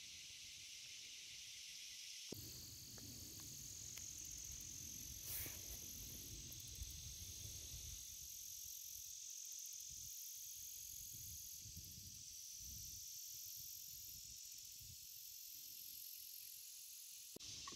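Faint, steady high-pitched buzz of a swamp insect chorus. A low rumble joins it about two seconds in.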